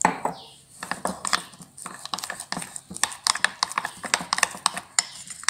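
Metal spoon clicking and scraping against a ceramic plate while stirring thick gram-flour (besan) batter, a rapid, irregular run of clicks.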